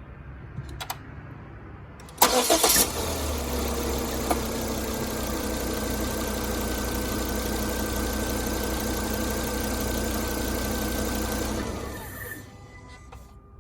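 Volvo S60 T5 engine cranking and catching about two seconds in, idling steadily, then shut off a couple of seconds before the end.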